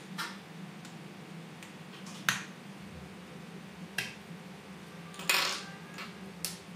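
Soft plastic tube of clear glue being handled and opened: about six sharp plastic clicks and crackles, the loudest a single click a little past two seconds in and a longer crackle of the squeezed tube about five seconds in. A low steady hum runs underneath.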